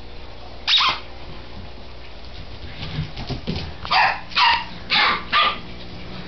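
Puppy barking: one high, sharp bark about a second in, then four barks in quick succession near the end.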